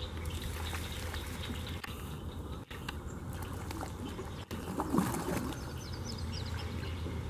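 Swamp ambience: a steady low rumble with faint bird chirps, and a brief watery splash about five seconds in.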